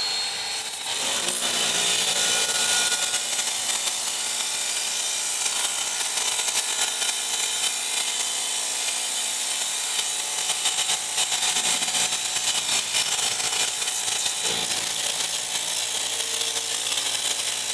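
DeWalt 20 V cordless pressure washer (DCPW550) spraying a steady jet of water through its 15-degree fan tip onto a truck's bumper. The hiss of the spray runs over a steady hum from the pump motor.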